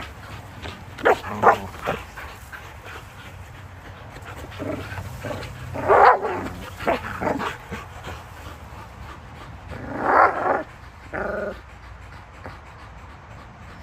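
Two Belgian Malinois vocalizing in short bursts while biting and tugging a hanging rope toy. The loudest bursts come about six and ten seconds in, with a short pitched cry just after eleven seconds.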